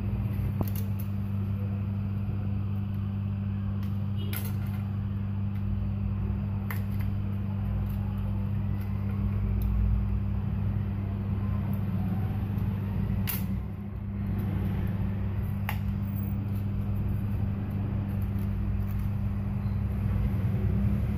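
Steady low mechanical hum with a few sharp clicks as pieces of cigarette-box card are handled and cut.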